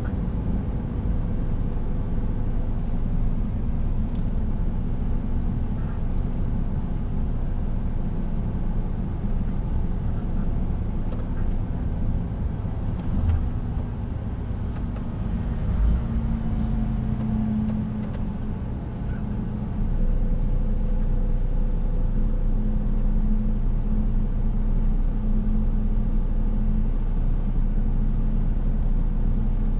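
Scania S460 truck's inline-six diesel engine and road noise heard from inside the cab while driving, a steady low hum. A short thump comes about sixteen seconds in, and a few seconds later the engine sound steps up louder and deeper.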